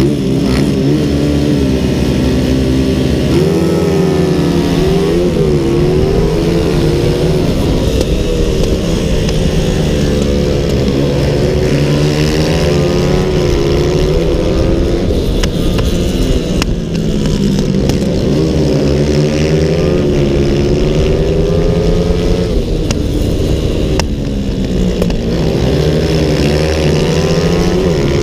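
Onboard sound of a CG 300 class race motorcycle's engine at full throttle. Its pitch climbs through each gear and drops back at each shift, over steady wind rush.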